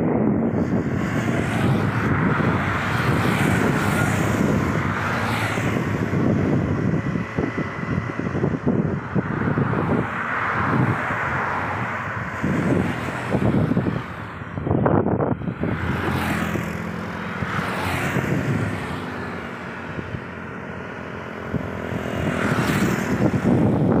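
Road traffic on a two-lane highway: cars and motorcycles passing one after another, each swelling and fading as it goes by, with a quieter gap shortly before the end.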